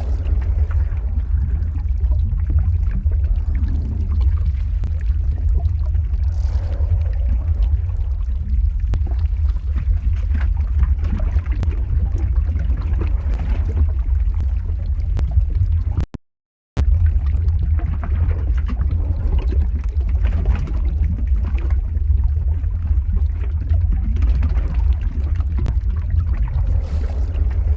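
Lava ambience sound effect: a loud, steady deep rumble with a dense crackling, bubbling texture on top. It drops to silence for about half a second some 16 seconds in, then resumes unchanged, as at the seam of a loop.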